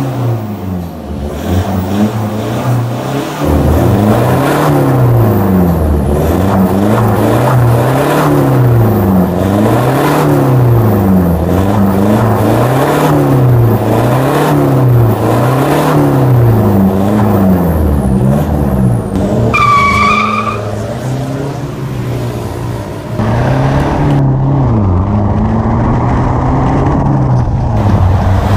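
Toyota Hiace Grandia van's turbocharged engine revved again and again through an aftermarket turboback exhaust, its note rising and falling about once every two seconds. A brief high whistle comes about twenty seconds in.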